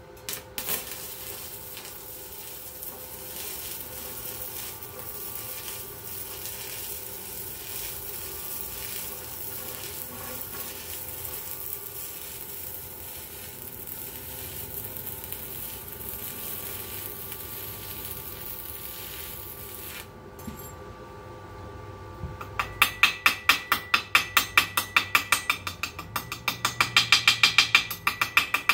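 Electric arc welding on steel square tubing: a steady crackling sizzle of the arc for about twenty seconds, then it stops. After a short pause a chipping hammer knocks slag off the fresh weld in rapid, ringing metallic taps, about four or five a second and louder than the welding.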